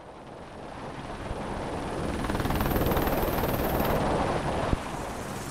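Helicopter in flight, rotor and engine noise mixed with a rush of wind, swelling up over the first three seconds and then holding steady.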